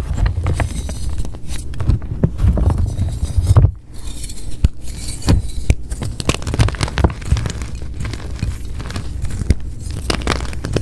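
Blocks of plain gym chalk being crushed and crumbled, a dense run of crisp crunching and crackling with soft low thumps, pausing briefly about a third of the way in.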